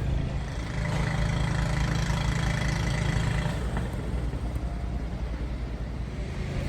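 An engine running steadily, growing louder for about three seconds from a second in, then settling back.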